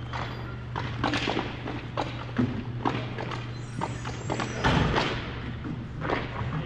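Irregular thuds and knocks, a few a second, over a steady low hum.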